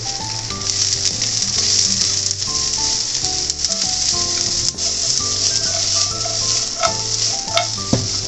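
Bean sprouts, green pepper and carrot strips sizzling steadily in hot oil in a frying pan while being stir-fried with chopsticks. Near the end come a few sharp knocks of the chopsticks against the pan.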